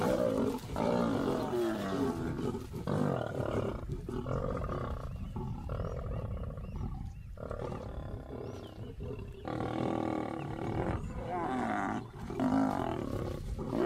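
Lions growling and snarling over a kill in a string of short, rough bouts with brief breaks between them: the aggression of a male taking the carcass back from a feeding lioness.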